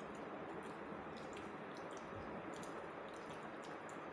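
Faint chewing and mouth sounds of people eating French fries with their fingers: small wet clicks scattered over a steady hiss.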